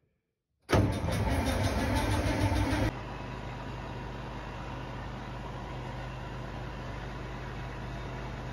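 Massey Ferguson 860 combine's engine starting on a shot of starting fluid sprayed into the air intake, loud and rough with a fast rhythmic pulse for about two seconds. It then cuts abruptly to a steady, quieter drone of the engine running.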